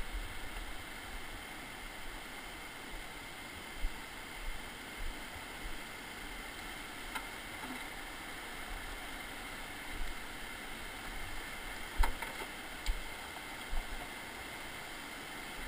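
Steady rush of a whitewater river running over rocks, with irregular low thumps and a few sharp knocks close by as footsteps and gear meet the rocky ground, the sharpest knock about three quarters of the way in.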